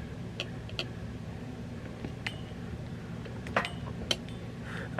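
A handful of short, light clicks and clinks of small hard objects being handled, spaced irregularly, the loudest two about three and a half and four seconds in, over a faint low hum.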